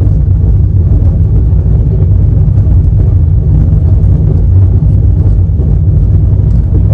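Passenger express train running at speed, heard from on board: a loud, steady low rumble of wheels on the track, with faint light ticks over it.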